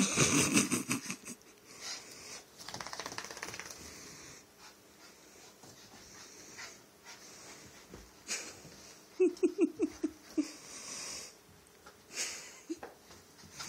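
Small wet dog scrambling and rubbing itself on carpet and furniture to dry off: irregular scuffling and rustling with the dog's heavy breathing. Past the middle it gives a quick run of about six short low vocal sounds.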